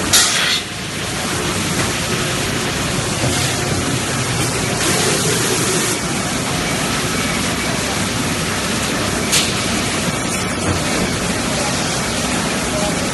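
An HDPE extrusion blow molding machine running: a steady dense hiss and hum of machinery, with a sharp blast of compressed air right at the start and another short air release about nine seconds in.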